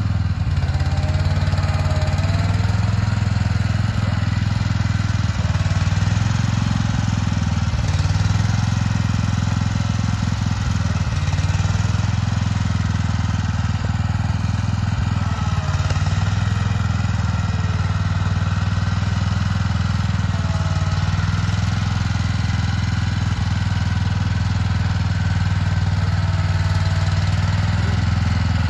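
Small engine of a compact ride-on tractor sprayer running steadily as it drives slowly, with a strong low hum.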